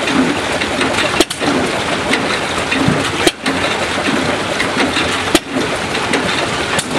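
Water splashing and churning steadily into a galvanized stock tank, a loud even rush, broken by a brief sharp click about every two seconds.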